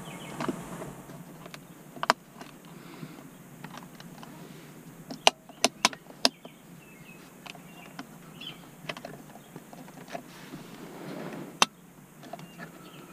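Sharp plastic clicks and knocks from a car's centre-console trim and an aftermarket switch panel being handled and pressed into place, over soft rustling. There is a single click about two seconds in, a quick run of four clicks around the middle, and a loud one near the end.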